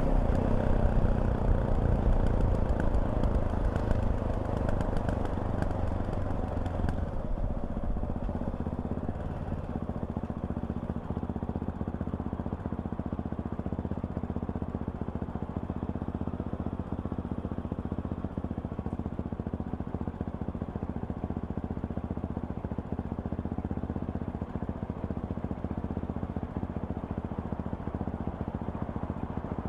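Fantic Caballero 500's single-cylinder four-stroke engine running under way; it eases off about seven seconds in and settles to a quieter, steady note.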